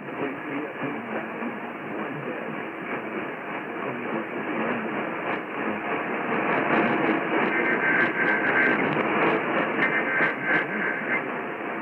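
AM radio static between transmissions: a steady hiss, with crackles and a faint steady whistle coming and going in the second half.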